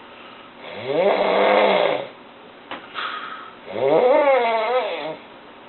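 Loud snoring: two long snores, each starting on a low tone that rises in pitch and wavers, with a short click between them.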